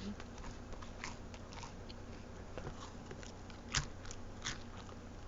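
Crunchy chips being chewed with a steady run of crisp, crackling crunches. Two stronger crunches come about three quarters of the way through.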